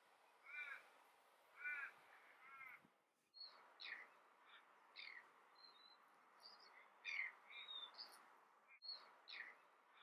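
Faint bird calls: three arching calls in the first three seconds, then after a short break a run of short chirps and quick falling whistles.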